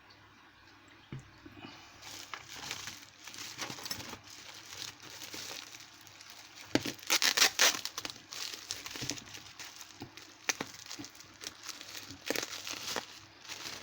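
Packaging crinkling and crumpling as an item is unwrapped by hand. It starts about two seconds in and goes in uneven rustling bursts with small crackles, loudest a little past halfway.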